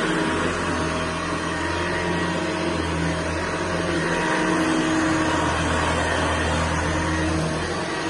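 Hoover Senior 652A upright vacuum cleaner running steadily: a motor hum with several constant tones over a broad, even rush of air.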